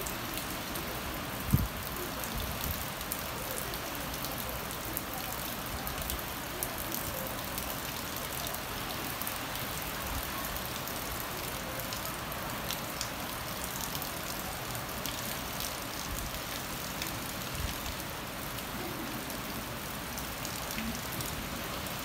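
Steady rain falling, an even hiss with scattered individual drops ticking through it. A single dull low thump about a second and a half in.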